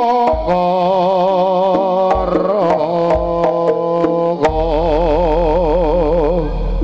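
Live jaranan music: a long held melody line with a wide, wavering vibrato over the ensemble. A deep low tone comes in about two-thirds of the way through and sustains.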